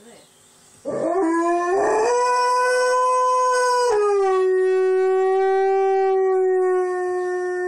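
Alaskan Malamute howling: one long howl starting about a second in, rising into a held note, then stepping down to a slightly lower steady pitch that carries on to the end.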